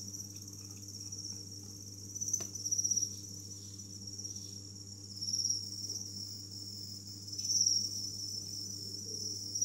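Crickets chirping: a steady high-pitched trill that swells louder a few times, over a low steady hum.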